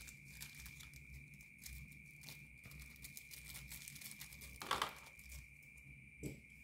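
Faint small clicks and rustling of tiny laptop screws and a screwdriver being handled on a workbench, with one sharper click about five seconds in. A faint steady high-pitched whine runs underneath.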